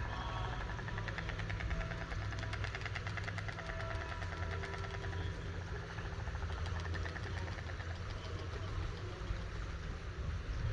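White stork clattering its bill: a fast, regular rattle of clicks, about a dozen a second, starting about a second in and fading out around five seconds in, over a steady low rumble.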